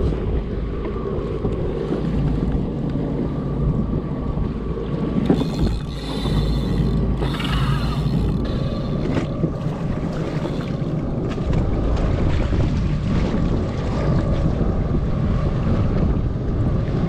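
Wind buffeting the microphone over choppy sea water around a jet ski, with a faint steady tone throughout. A brighter hiss comes about five seconds in and lasts a few seconds.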